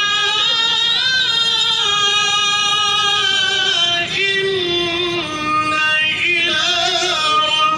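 Qur'an recitation in the melodic tilawah style: a solo voice holding long, drawn-out lines with fast wavering ornaments.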